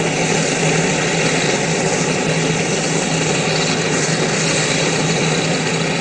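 Turboprop engine of a military transport aircraft running on the ground: a steady, loud rushing noise with a constant low hum underneath.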